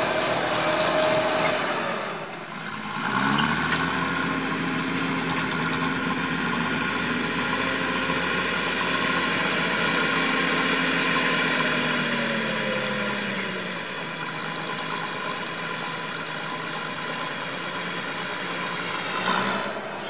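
Massey Ferguson 1200's Perkins six-cylinder diesel engine running steadily, with a fresh, stronger engine note from about three seconds in; the pitch drops between about twelve and fourteen seconds as the revs come down, and the engine runs a little quieter after that.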